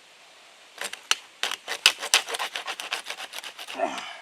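Folding hand saw cutting through a caulk-gun nozzle tip in fast back-and-forth strokes. It starts about a second in and stops near the end, as the tip is cut through.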